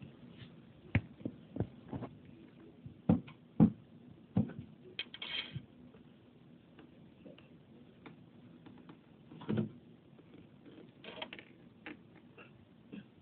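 Mice moving about: scattered light knocks and taps with a few short scratchy rustles, at uneven intervals.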